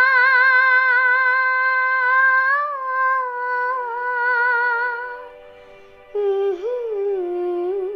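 A young girl singing solo without words, holding one long high note with a steady vibrato for about five seconds. After a short pause she starts a lower note that dips and wavers before settling.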